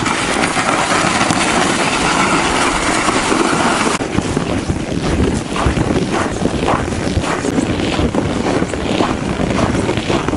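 Wind rushing on the microphone while a loaded gear sled is towed over snow. About four seconds in the sound changes abruptly to gusty wind with roughly regular crunching footsteps in snow.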